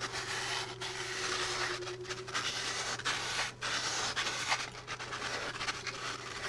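Fine P400 sandpaper rubbing back and forth around a starter motor armature's copper commutator: a scratchy hiss in strokes with short breaks between them. The sanding polishes carbon dust and dirt off the soft copper so the brushes make better contact.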